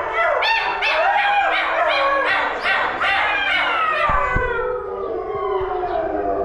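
A pack of wolves howling in chorus: many voices overlap in short, yipping rises and falls. Near the end the chorus slides lower and thins out into a fading howl.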